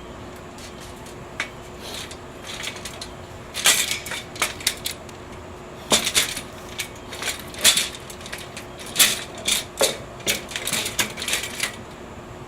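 Irregular metallic clinks and clanks of bolts and steel stand parts being handled during assembly, coming in clusters, with a faint steady hum underneath.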